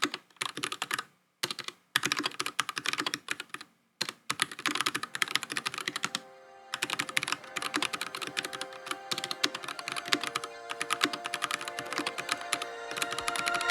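Fast typing on a COX CA108BT full-aluminium mechanical keyboard with its stock Gateron Yellow linear switches, a dense run of key clacks with brief pauses about a second in and about four seconds in.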